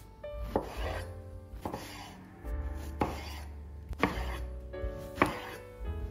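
Santoku knife slicing through stacked eggplant rounds and knocking on a wooden cutting board: five sharp cuts, about one a second.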